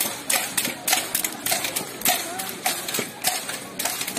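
Footsteps on a paved road as a parade walks by, a quick even patter of scuffing steps about three a second, over faint voices.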